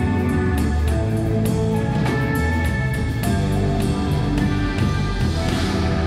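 Live band playing amplified rock music: a drum kit keeping a steady beat under sustained electric guitar notes.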